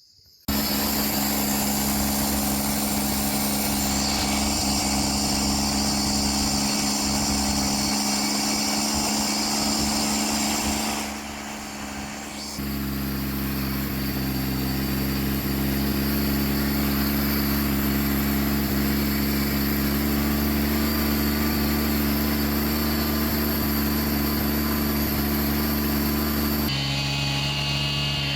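John Deere 322's Yanmar three-cylinder gas engine running steadily while it warms up. It drops quieter for about a second and a half around eleven seconds in, and its tone changes abruptly near the end.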